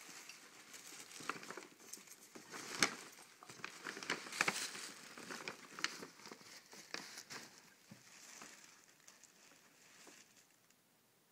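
Tissue paper and a paper gift bag crinkling and rustling as a dog noses and digs into the bag, with sharp crackles. The rustling is busiest in the first half and dies away near the end.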